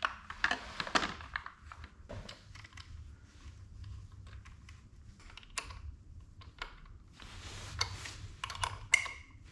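Scattered light plastic clicks and rustling as a plastic number plate is handled and its two prongs are worked into their holes on a Razor MX350 electric dirt bike. The clicks come irregularly, with denser rustling near the end.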